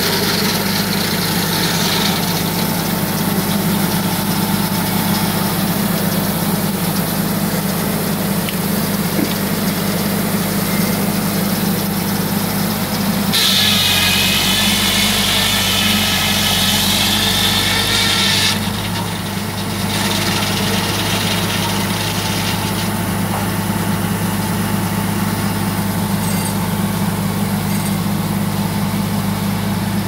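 Shop-built circular sawmill running with a steady engine drone. About halfway through, the large circular blade cuts through a log for about five seconds with a high, whining saw note; the tail of an earlier cut fades out at the very start.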